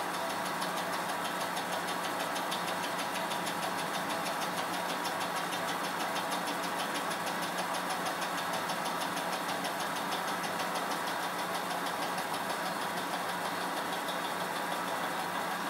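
A fly cutter in a Rockwell milling machine's horizontal spindle taking a roughing pass across a metal bar: a steady cutting noise with a fast, even rhythm of cutter strikes. The cut runs smooth and stable, with no chatter.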